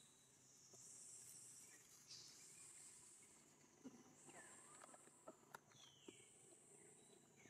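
Faint high-pitched insect buzzing that swells and fades about every two seconds, with a few soft clicks of leaf rustling.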